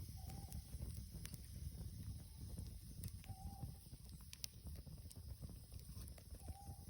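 Campfire burning with scattered small crackles over a low steady rumble. A short faint tone sounds three times, about three seconds apart.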